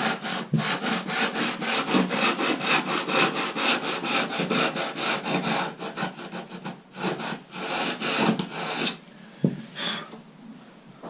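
Hand sander rubbed rapidly back and forth over the cut edge of a composite hinge, easing the edge: quick rasping strokes, about four or five a second. The strokes stop about nine seconds in, followed by a single knock.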